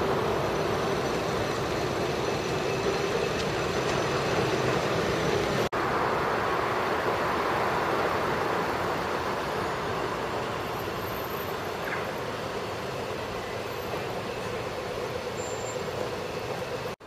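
Steady city street traffic noise: a continuous rumble of passing vehicles with a low drone, growing a little fainter in the second half.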